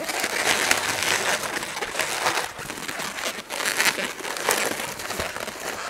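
Inflated latex modelling balloon rubbing and scraping under the hands as its twisted bubbles are worked into position, in a continuous run of short scrapes.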